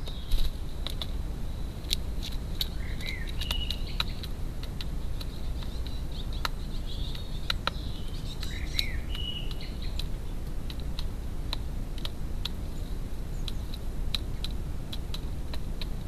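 Great spotted woodpecker pecking at food in a plastic feeder tray: irregular, sharp single taps, with a few short bird chirps in between.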